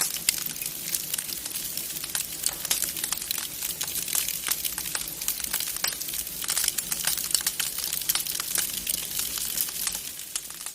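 Wood fire crackling in a fireplace: a dense, irregular stream of sharp pops and snaps over a steady hiss, fading out near the end.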